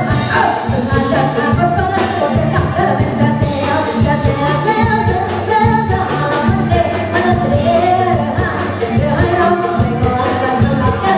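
A woman singing a Thai luk thung song live into a handheld microphone, over a band with drums and keyboard playing a steady beat.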